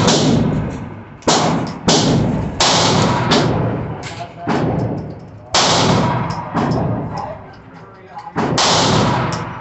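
Semi-automatic pistol shots in an indoor shooting range: an irregular string of loud shots, several a second apart, with quieter shots in between, each followed by a ringing echo off the range walls.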